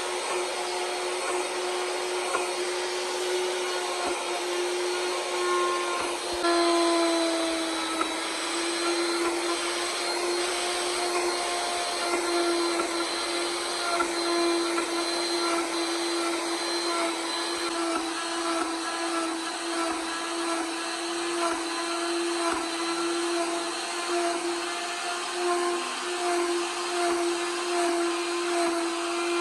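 Electric power carving tool, such as a rotary grinder, running continuously with a steady whine and a hissing grind. Its pitch shifts slightly and its loudness swells now and then as it works the wood.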